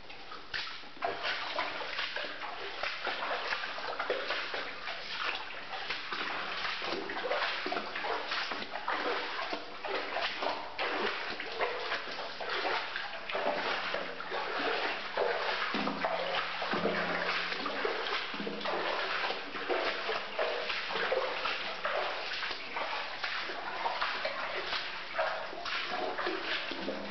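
Footsteps splashing through shallow standing water on the floor of a narrow tunnel, one sloshing step after another.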